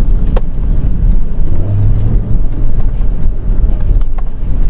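Porsche sports car driving along a road: a steady low rumble of engine and road noise. A sharp click about half a second in.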